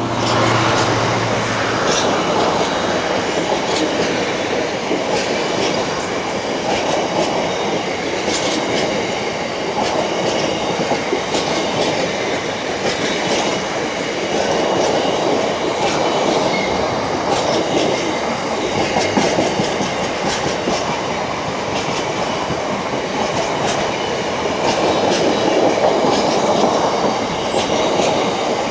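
Freight train of covered hopper wagons rolling past close by: a steady rumble of wheels on rail, with repeated clicks as the wheelsets cross rail joints.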